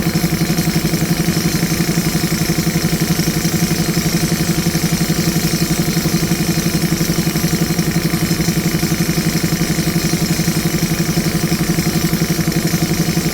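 Heavy diesel engine idling steadily with an even, rapid throb.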